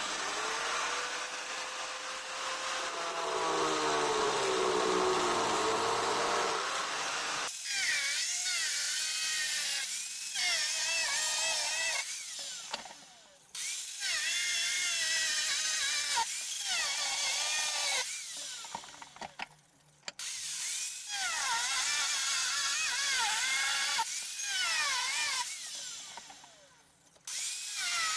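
A hand-held power tool runs under load in several long bursts, its pitch dipping and rising as it works, with short stops between bursts.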